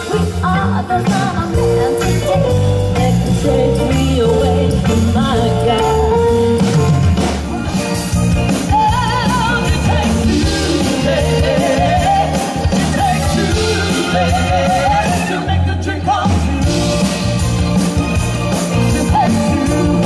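Live soul band playing a classic Motown song: a singer over bass and drums, the voice wavering in vibrato on held notes in the middle.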